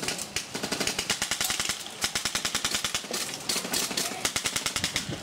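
Airsoft guns firing on full auto in several long, rapid bursts of sharp cracks, many a second, with short breaks about two and three seconds in.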